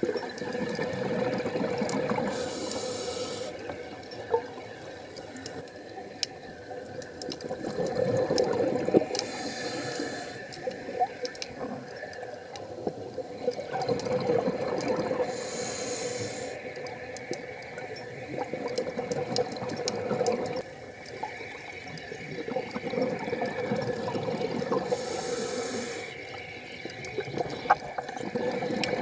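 Scuba diver breathing through a regulator underwater: a hiss on each inhale and a swell of bubbling on each exhale, repeating about every five seconds.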